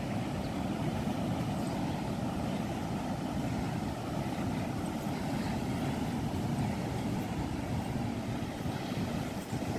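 Steady low rumble of sea wind buffeting a phone microphone, mixed with the wash of surf breaking on a sandy beach.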